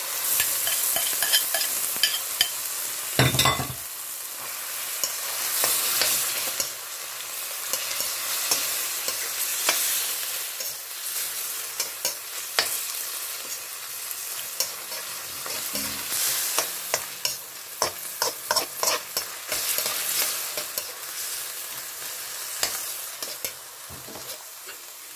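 Prawns frying and sizzling in a hot sauce in a wok, stirred with a spatula that scrapes and clicks against the pan throughout. There is a heavier knock a little over three seconds in.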